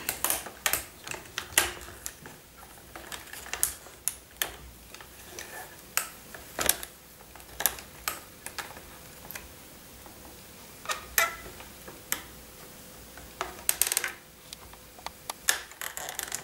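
Irregular clicks and light knocks of a Dollzone resin ball-jointed doll's hard limb joints as its arms and hands are moved and posed by hand.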